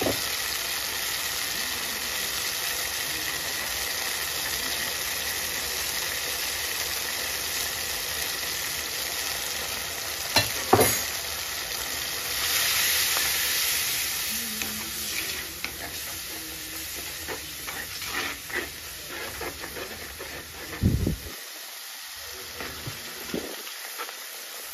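Onions, garlic and curry leaves sizzling in sesame oil and tamarind water in a clay pot, with a wooden spoon stirring chilli powder through. There is one sharp knock about ten seconds in. The sizzle grows louder for a couple of seconds just after it, and it turns quieter with small clicks near the end.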